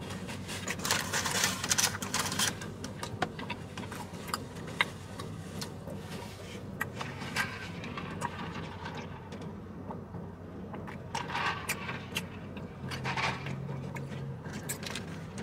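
Paper napkin and food wrapper rustling and crinkling in irregular bursts, with small clicks and handling knocks, over a faint steady low hum in a car cabin.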